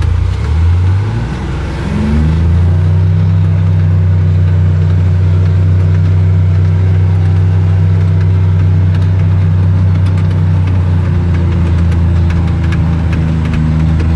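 Gator utility vehicle's engine picking up speed about two seconds in, then running steadily as it drives along, with light rattles over the engine note.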